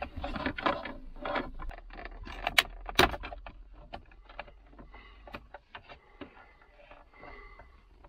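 Plastic centre-console trim and clips of a car interior being handled and unclipped: a run of clicks, knocks and rattles, with two sharp snaps about two and a half and three seconds in.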